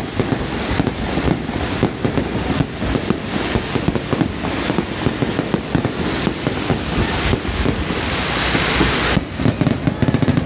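Aerial fireworks bursting in quick succession, a dense run of booms and bangs. About eight seconds in a high hiss builds and cuts off suddenly, followed by a quick string of sharp bangs.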